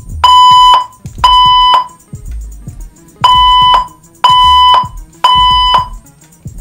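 Fire alarm speaker strobes of several brands (Wheelock, Gentex, System Sensor, EST) sounding the steady alert tone of a voice evacuation system in the temporal-three pattern. Two tone bursts, a pause of about a second and a half, then three more.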